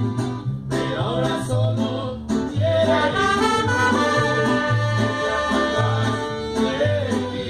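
Mariachi band playing, with singing over strummed strings and a bass line of separate plucked notes.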